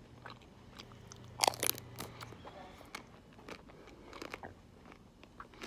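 A bite into a hard-coated ice cream bar, the shell crunching loudly about a second and a half in, followed by close-up chewing with small crackles of the coating.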